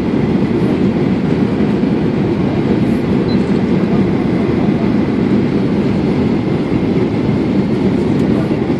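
Steady rumble of an airliner's engines and rushing air as heard inside the passenger cabin in flight, even and unbroken throughout.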